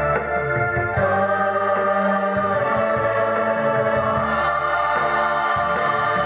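Girls' choir singing with electronic organ accompaniment: wavering sung lines over sustained organ chords and bass notes that change every second or two.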